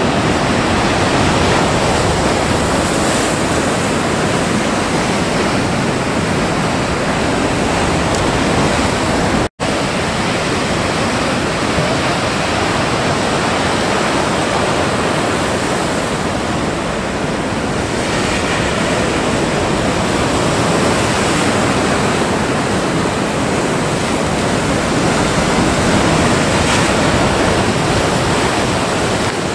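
Steady rush of ocean surf and breaking waves. It cuts out for an instant about nine and a half seconds in.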